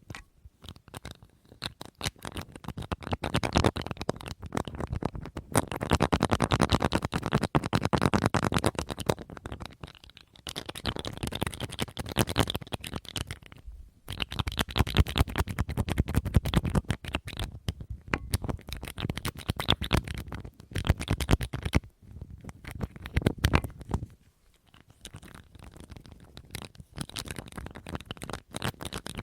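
ASMR tapping and scratching on an object: rapid, dense taps in bursts of a few seconds, broken by short pauses.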